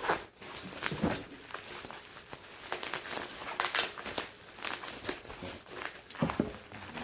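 Cardboard box and packaging being handled and pulled open, rustling and crinkling with scattered light knocks and clicks.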